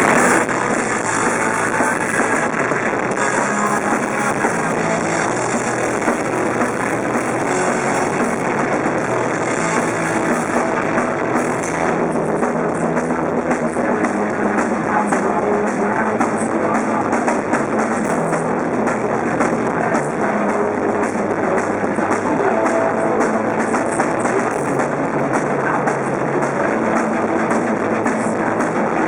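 Punk rock band playing live at loud, steady volume: distorted electric guitars, electric bass and a full drum kit.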